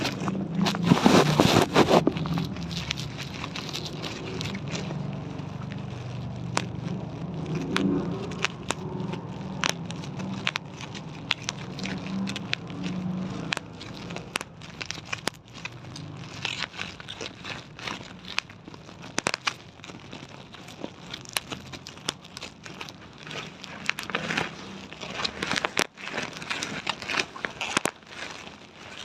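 Irregular sharp clicks and crackles at an uneven pace, with a louder noisy burst about a second in.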